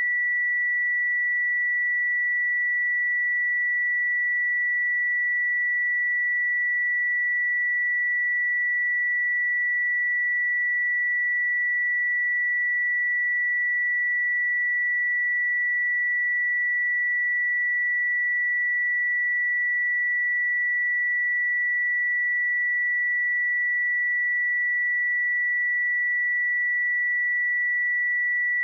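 A steady 1954 Hz sine-wave test tone: one pure, constant high pitch with no change in level, of the kind used to check speakers and headphones.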